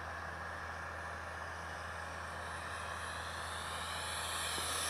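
Faint, steady whine of a 3D-printed RC MiG-15's 50 mm electric ducted fan in flight, growing louder near the end.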